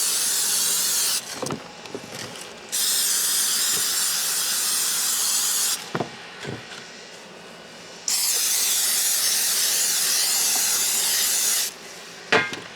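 Spray can hissing in three long bursts of three to four seconds each, coating the insides of paver mold containers, with a few light knocks from handling the containers between bursts.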